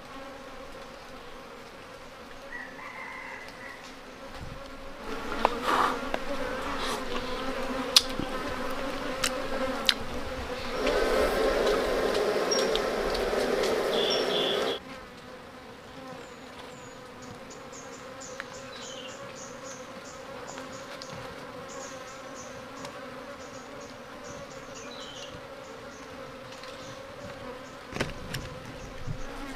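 A swarm of wild honeybees buzzing steadily around their nest, which is being cut out of a tree trunk. The buzzing swells louder for several seconds in the middle. A few sharp clicks sound over it.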